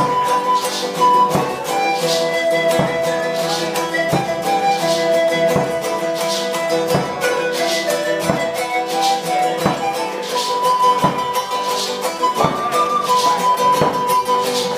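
Background folk-style music: a held, flute-like melody over plucked strings, with a steady beat.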